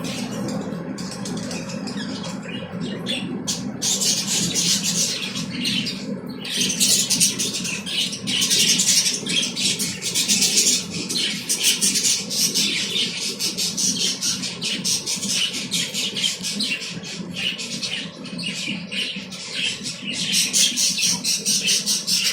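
A flock of caged cockatiels and lovebirds chattering and squawking continuously, a dense stream of rapid high-pitched calls that grows busier about four seconds in, over a steady low hum.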